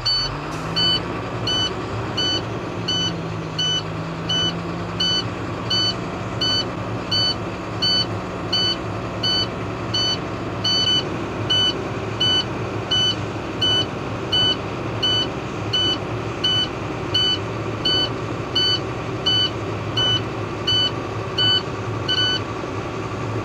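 A truck's low air pressure warning buzzer beeps about twice a second over the diesel engine, which starts and rises to a fast idle to build air pressure. The beeping means the air pressure is still below the warning level of about 60 PSI. It stops near the end as the pressure climbs.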